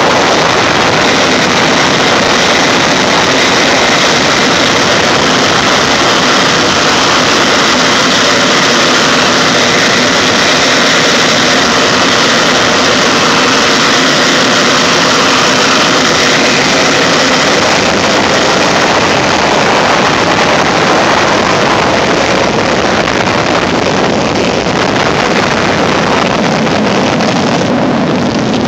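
BAC Jet Provost's Viper turbojet running with a steady whine and rush as the jet taxis away, getting slightly quieter in the last few seconds.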